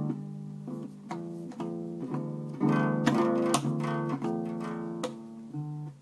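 Acoustic guitar lying flat, its strings swept and slapped by a baby's hand: uneven strums about twice a second, each ringing on. The strums are loudest a little past the middle and die down near the end.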